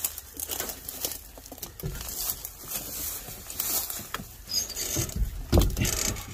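Crank-operated door window of an old car being wound down by hand, with irregular clicking and rattling of the glass and regulator, and a few louder knocks near the end.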